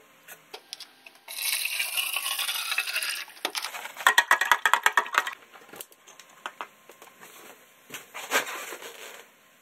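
Water poured into a tall plastic container holding white powder, then a metal spoon stirring fast and clinking against the container to mix the electrolysis solution. Scattered knocks of the container and wires being handled, and another short noisy stretch near the end.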